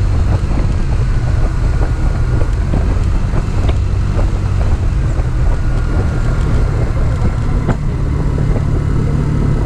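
Kymco Super Z 125 scooter's single-cylinder engine running steadily on the move, mixed with wind rumbling on the microphone.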